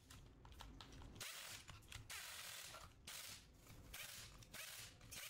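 Near silence, with faint hiss coming and going and a few small clicks.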